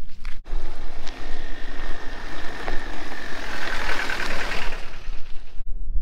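A motor vehicle passing by, its engine and tyre noise swelling to a peak about four seconds in and then fading.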